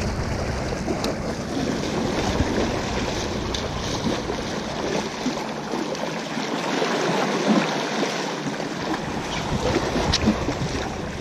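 Small waves washing against rocks, with wind buffeting the microphone. There are a few light clicks near the end as the spinning reel is handled.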